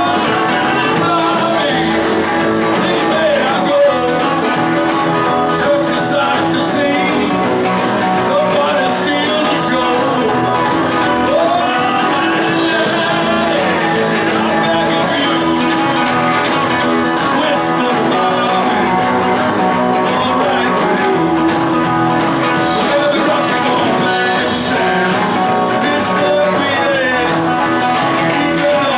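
Live rock and roll band playing: electric guitars, keyboard and drums, with a voice singing.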